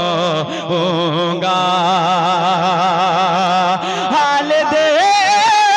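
Man singing a naat through a microphone, drawing out long wordless held notes with heavy vibrato over a steady low drone. The drone stops about four seconds in, and the voice slides up into a new sustained note near the end.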